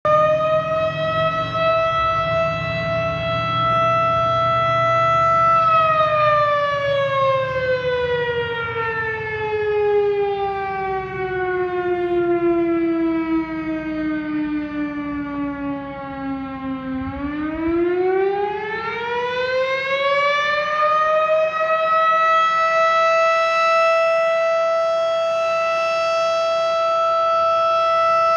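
Fire siren sounding: a steady tone that, after about five seconds, slowly winds down in pitch for around ten seconds, then winds back up to its full pitch and holds there again.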